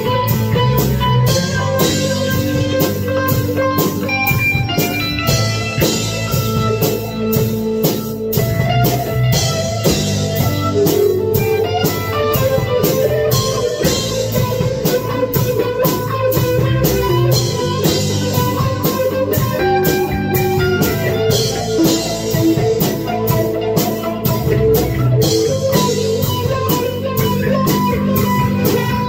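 Jackson electric guitar playing a rock jam, with drums keeping a steady beat underneath.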